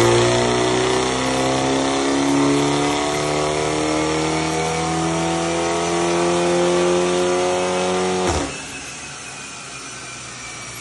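BMW G20 330i's B48 turbocharged four-cylinder through a titanium valved exhaust, pulling with its note rising slowly and steadily. About eight seconds in the sound drops off sharply to a much quieter level.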